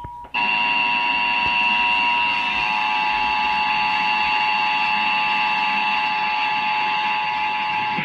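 Emergency Alert System attention signal for a required monthly test: the steady two-tone alarm (853 and 960 Hz) sounding from a TV speaker. It drops out for a split second just after the start, comes back louder and harsher, holds steady, and cuts off at the very end as the TV's programme sound returns.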